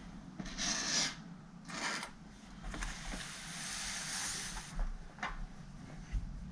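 Plastic case parts of a Dell Latitude CPi laptop scraping and rubbing as they are pressed and worked into place, with a longer scrape in the middle and a couple of light clicks near the end; one part's arm is not seating fully.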